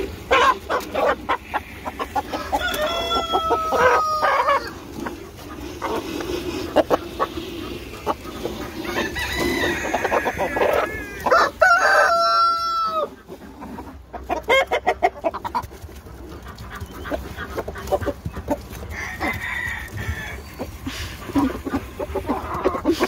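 Chickens clucking, with a rooster crowing: one long crow about three seconds in, and another from about nine seconds in that ends in a held note near thirteen seconds.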